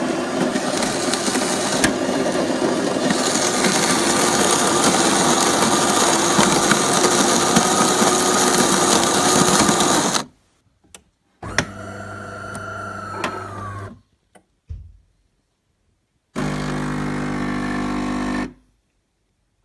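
De'Longhi Magnifica Start bean-to-cup coffee machine running: a loud, steady mechanical noise for about ten seconds that stops suddenly, then two shorter buzzing runs a few seconds apart.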